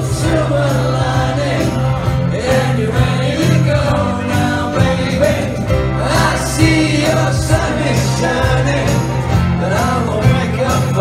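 Live band playing a pop-rock cover song: sung vocals over electric guitars and keyboard, with a steady beat.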